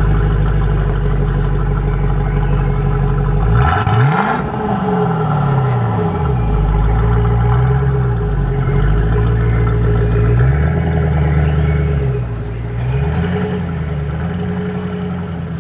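A 2012 Ford Mustang GT's 5.0-litre V8 is idling with a deep rumble. About four seconds in it is revved once sharply and falls back over a couple of seconds, then blipped a few more times, more gently.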